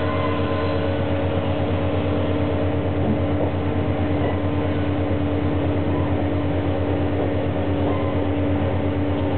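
KiHa 48 diesel railcar under way, heard from inside the passenger cabin: the underfloor diesel engine's steady drone with a low, even throb and constant humming tones, over a haze of running noise.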